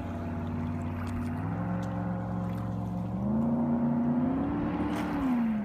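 454 big-block Chevrolet V8 of a 1979 Crusader tunnel-hull race boat running at speed on a hundred-mile-an-hour run. Its engine note climbs in two steps, then falls away near the end.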